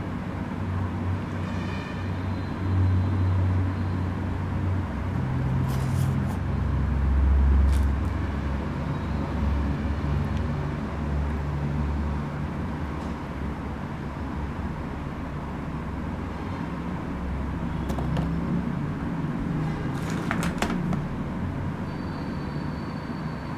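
Steady low background rumble, with a few sharp clicks from toy figures being handled in a cardboard box.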